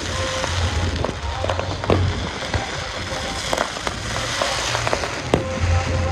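Fireworks display: continuous crackling, with three sharp bangs spaced a little under two seconds apart.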